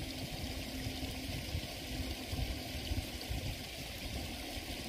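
Water flowing through a small tidal sluice gate: a steady, even rush with an uneven low rumble underneath.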